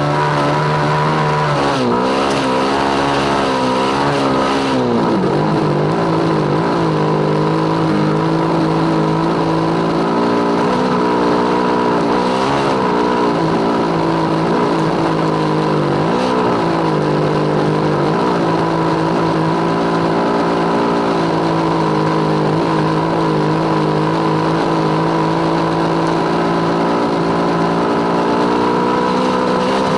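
Small single-cylinder motorcycle engine running hard on sand dunes, its revs rising and falling repeatedly in the first half, then holding fairly steady.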